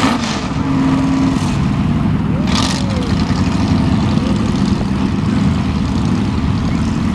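Two hot-rod drag cars' engines idling together at the starting line, a loud, steady low rumble, with a brief hiss about two and a half seconds in.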